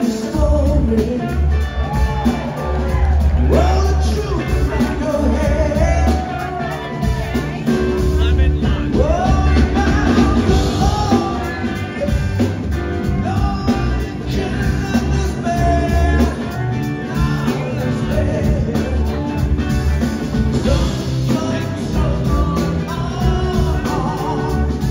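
Blues-rock band playing live: a man singing lead over electric guitars, bass and a full drum kit with a steady heavy beat, backing singers joining in.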